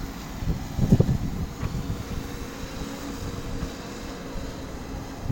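JCB backhoe loader's diesel engine running steadily, with a loud low thump about a second in.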